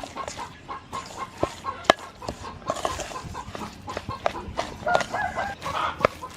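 Chickens clucking, with short pitched calls that come in a cluster about five to six seconds in. Sharp clicks and knocks are scattered through, the loudest about two seconds in.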